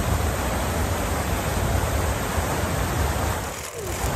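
Steady rush of tall fountain jets splashing down into their pool, with a brief dip about three and a half seconds in.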